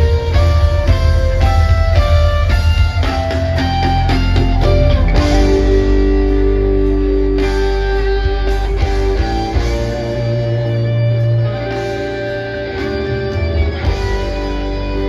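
Rock band playing an instrumental passage with electric guitar, bass, keyboards and drums. A quick run of short picked notes fills the first five seconds or so, then longer held notes carry on to the end.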